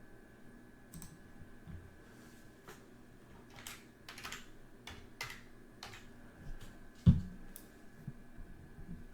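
Typing on a computer keyboard in irregular runs of keystrokes, with one louder low thump about seven seconds in.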